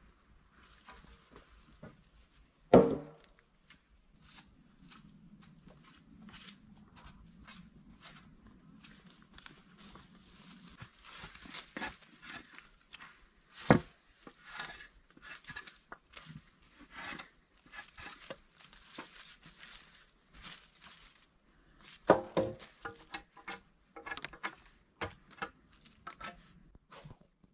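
Wooden poles and logs being handled and knocked together. There are three loud wooden knocks, about 3 s, 14 s and 22 s in, and the last is followed by a quick run of ringing knocks. Dry leaves and twigs crackle underfoot throughout.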